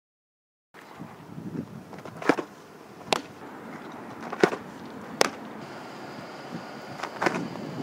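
Softball pitching practice on a dirt field: several sharp pops spaced a second or so apart, among them a change-up pitch smacking into the catcher's mitt, over steady outdoor background noise. A faint, steady high tone joins past the middle.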